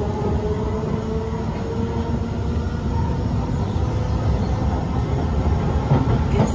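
Interior of a Kawasaki–Nippon Sharyo C151 MRT train in motion: a steady rumble of wheels on track with a faint whine, and a couple of short knocks near the end.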